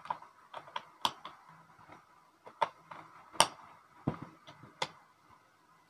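Handling clicks from a Sony A7 II camera body as its front body cap is fitted at the lens mount and the body is turned over: scattered sharp plastic-and-metal clicks and taps at irregular intervals.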